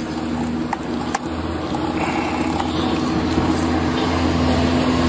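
A steady motor hum with a constant low drone, slowly growing a little louder, and a couple of faint clicks about a second in.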